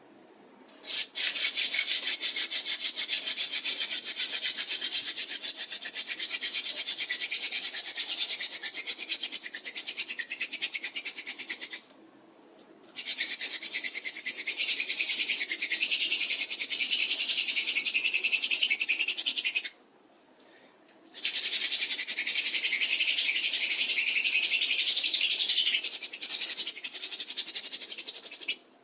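Wooden hand-drill spindle spun against a hearth board, a dry, rasping rub with fast, even pulsing. It comes in three long bouts broken by short pauses about 12 and 20 seconds in.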